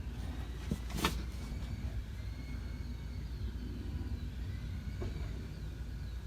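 Steady low rumble, with a sharp click about a second in and a fainter knock near five seconds.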